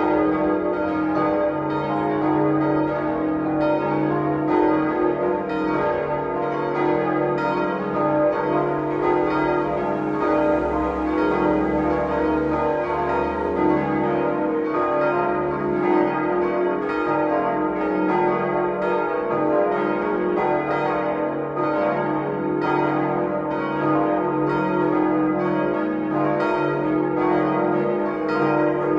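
Several church bells ringing together in a full peal: a steady run of overlapping strikes over a sustained hum of ringing tones, with no pause, heard from inside the church nave.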